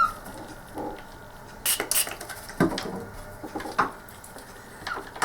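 Small hard plastic parts of a ball mouse being handled and set down: about half a dozen light clicks and knocks at uneven intervals.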